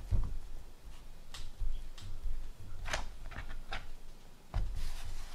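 Pizza dough being kneaded by hand on a floured countertop: two heavier thumps as the dough is pushed down on the counter, one at the start and one near the end, with several light taps and sticky slaps between.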